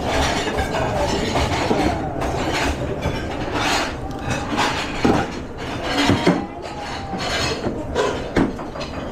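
Busy commercial kitchen during service: a steady background roar with scattered clatter and knocks of pans, plates and utensils.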